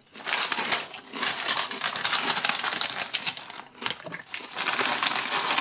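Foil-lined crisp packet rustling and crackling as a hand rummages inside it among the ridged crisps, with a short pause about four seconds in.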